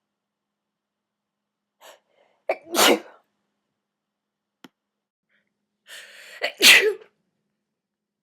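A woman sneezing twice during a sneezing fit, about four seconds apart, each loud sneeze preceded by a short in-breath.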